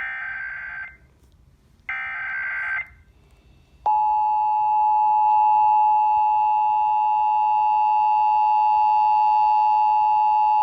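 Emergency Alert System test over a radio: two harsh one-second bursts of SAME header data about a second apart, then, about four seconds in, the steady two-tone attention signal starts and holds.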